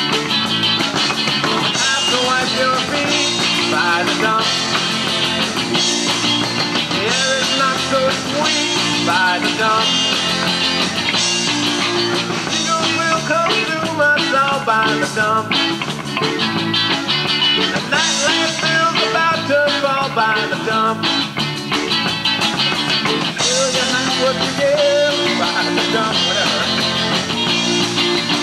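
A rock band playing live, with electric guitars, bass, drums and keyboards, in a loud, steady rock song.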